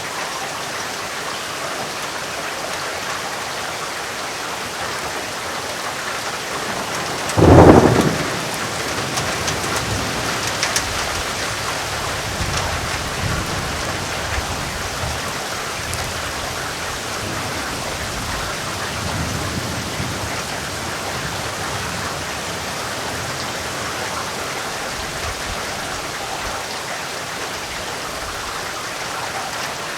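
Heavy rain falling steadily. About seven seconds in, a sharp, loud thunderclap, followed by low rolling thunder that rumbles on and off for over ten seconds before dying away under the rain.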